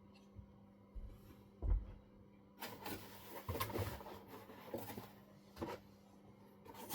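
Objects being handled on a workbench: a dull thump, then a stretch of rustling and clattering with a few separate clicks afterwards, over a faint steady hum.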